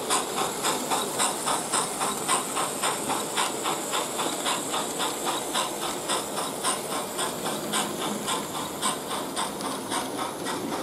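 Märklin BR 96 model steam locomotive's sound decoder playing steam chuffs through its small loudspeaker, an even run of hissy exhaust beats about four a second. The chuff rate is not yet set to match the wheel turns.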